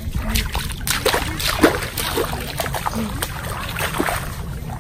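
Footsteps squelching and splashing through soft mud and shallow water, a string of irregular wet steps over a steady low rumble.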